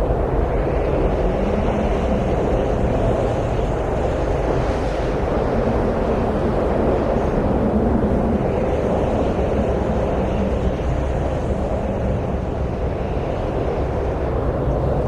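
Steady wind noise: a low rushing with no gusts or breaks, swelling and easing gently every few seconds.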